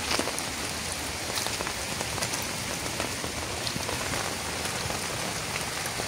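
Steady rain falling on foliage and ground, with scattered sharper drop hits.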